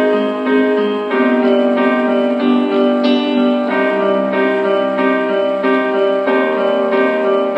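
iHome IBT16 mini speaker playing music: piano or keyboard chords changing about once a second, with thin sound and little bass.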